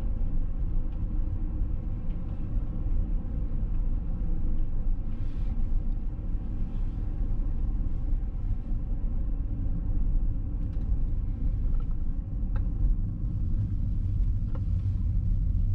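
A 2005 Jaguar S-Type's 3.0 V6 engine and tyres driving at a steady pace, a low, even rumble, with a few faint ticks in the second half.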